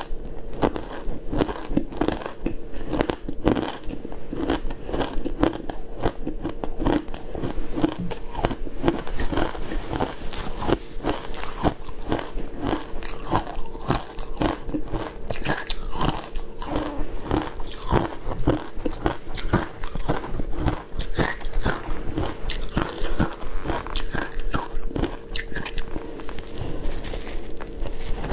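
Matcha shaved ice being chewed and crunched close to a clip-on microphone: a dense, continuous run of crisp crackles as the ice crystals are crushed between the teeth.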